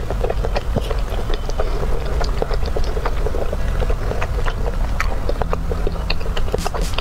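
Wet, sticky clicks and squelches of wooden chopsticks stirring and lifting sauce-coated enoki mushrooms and octopus from a thick red sauce, over a steady low rumble.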